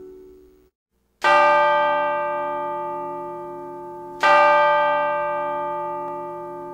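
The last guitar notes fade out, then a bell is struck twice, about three seconds apart, each stroke ringing on and slowly dying away.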